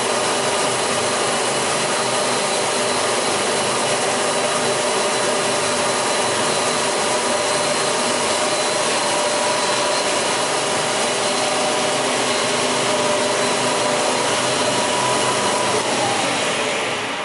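REMA DMGA 35 double-blade panel saw running steadily, a loud mechanical whir with a few steady whining tones over it. The sound dies away near the end.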